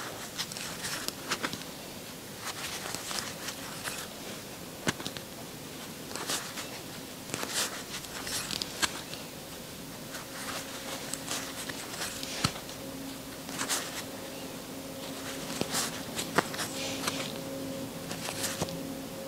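Crochet hook drawing yarn through stitches close to a clip-on microphone: irregular scratchy rustles and small clicks, one after another.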